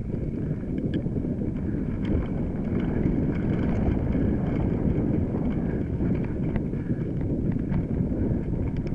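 Mountain bike riding a rough dirt trail: a steady low rumble from the tyres and bike, with frequent small clicks and rattles from the bike over bumps.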